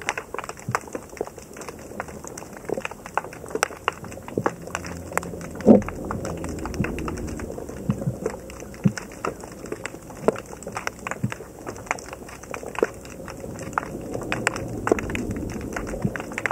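Underwater crackling: a dense, irregular patter of sharp clicks, typical of snapping shrimp on a rocky seabed. One louder knock stands out about halfway through, followed by a short low rumble.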